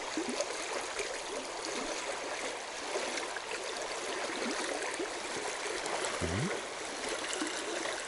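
Mountain stream running over a shallow rocky riffle: a steady rush of water.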